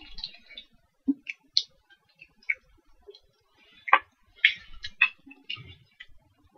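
Scattered small clicks and taps, irregular, a few a second, with a sharper click about four seconds in.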